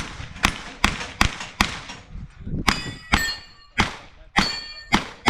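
Pistol shots fired in a steady string, about two a second, with steel targets ringing after the shots in the second half as they are hit.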